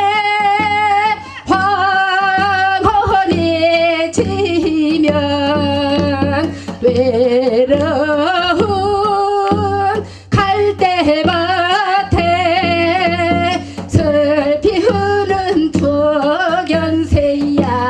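A woman singing a Korean shamanic chant in long phrases with a strong, wavering vibrato and short breaks between phrases, over a steady low hum.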